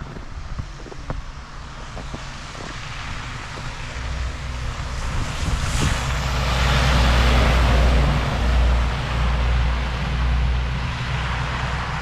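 A motor vehicle driving past on a wet, snowy road: a low engine rumble and tyre hiss build up, peak about seven seconds in, then fade. A few light clicks come in the first three seconds.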